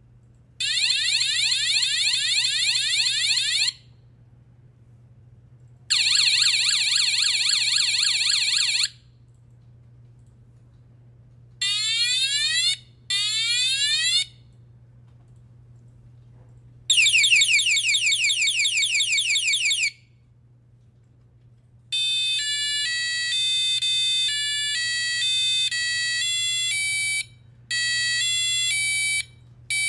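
The sound effect module's buzzer plays its built-in electronic alarm effects one after another, with about two seconds of quiet between them. The first several are fast, repeated rising siren-like sweeps. The last, starting about two-thirds of the way in, is a stepped beeping pattern of changing pitches.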